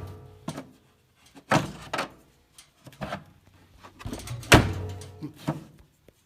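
A series of knocks and bangs from things being handled and set down, the two loudest about half a second and four and a half seconds in, each followed by a short ringing tone.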